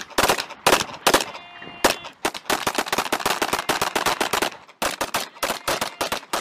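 Several handguns firing at once: a rapid, overlapping string of shots in the middle that thins to separate shots near the end.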